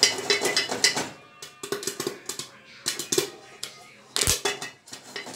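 Popcorn kernels popping inside a covered steel pot, with the pot and its enamel lid clattering as the pot is shaken on the gas stove grate. About four seconds in comes a single sharper, deeper clank of the lid.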